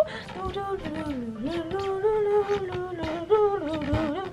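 A woman humming a slow, wandering tune that slides up and down in pitch, with a few soft thumps underneath.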